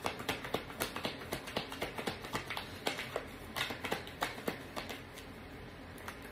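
A tarot deck being shuffled by hand: a quick, uneven patter of card clicks and flicks, several a second, that goes quiet for about a second near the end.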